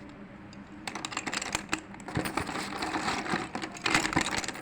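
Slate pencils crumbling: a dense run of rapid, dry crackling clicks that starts about a second in and goes on almost to the end.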